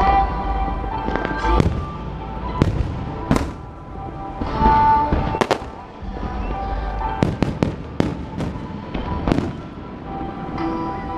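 Fireworks shells bursting in a display: sharp bangs at irregular spacing, about a dozen, some in quick clusters. Music plays along underneath.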